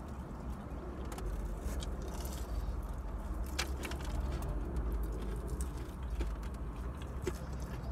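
Eating sounds: scattered small clicks and crunches of chewing and handling breaded fried food, over a steady low rumble inside the car.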